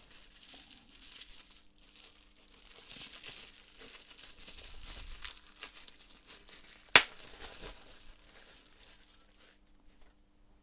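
Packaging crinkling and rustling as diorama kit parts are unwrapped and handled, with one sharp click about two-thirds of the way through.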